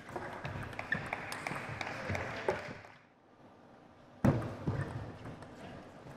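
Table tennis doubles rally: the plastic ball clicking rapidly off rubber paddles and the table, the exchange ending about three seconds in. After a short lull, a new rally opens about four seconds in with a sharp, loud hit, followed by more ball clicks.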